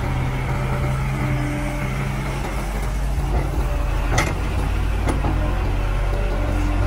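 Caterpillar E120B hydraulic excavator's diesel engine running steadily under load as the machine swings and digs, with two sharp knocks from the bucket about four and five seconds in.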